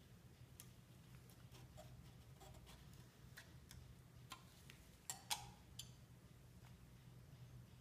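Faint, scattered little clicks and ticks of a steel pallet knife working under thin brass marquetry, with a quick cluster of louder clicks about five seconds in, over a low steady hum.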